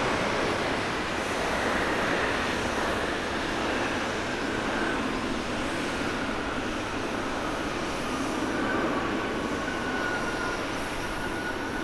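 Japan Airlines Boeing 777 twin-engine jet on its landing rollout, a steady rush of jet engine noise with a faint high whine sliding slowly down in pitch during the second half.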